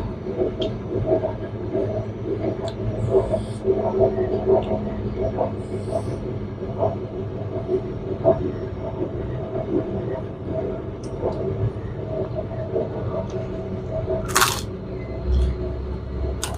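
A person eating close to the microphone: chewing with small irregular clicks and ticks, and one sharp crunch or clatter about 14 seconds in, over a steady low mechanical hum.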